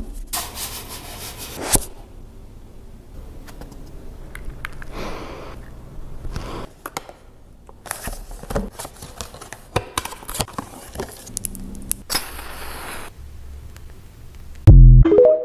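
Hands handling paper and cardboard gift packaging: rustling, scraping and a series of sharp taps and clicks on the boxes. A loud low thump near the end, cut off abruptly.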